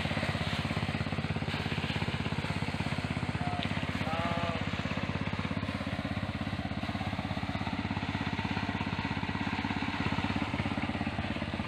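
Small engine running steadily with a fast, even putter.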